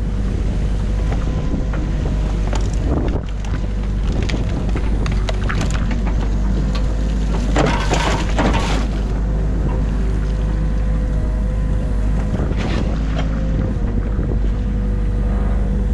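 Excavator's diesel engine running steadily with a hydraulic whine, heard from the operator's cab, with scattered knocks as the bucket works through a beaver dam of silt and sticks. About eight seconds in there is a louder rushing, crunching burst as the bucket pushes into the wet mud and branches.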